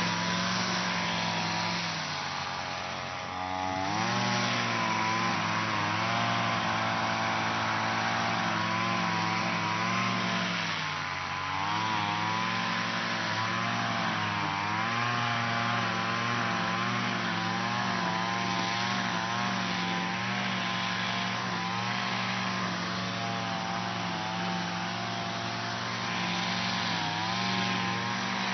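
Lawn mower engine running steadily, its speed sagging briefly and picking back up several times.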